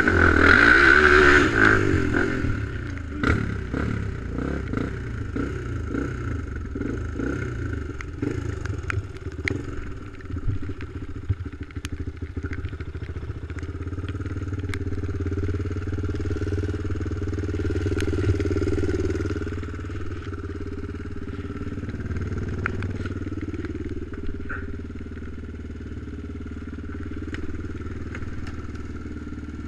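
ATV engine revving hard for the first couple of seconds, then settling into a steadier, lower running sound, with scattered clicks and clatter through it.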